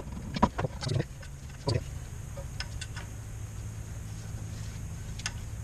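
A few sharp metallic clicks and knocks in the first second or so, then occasional light ticks, from tools and metal parts being handled while the front brake caliper is unbolted and taken off. A steady low hum runs underneath.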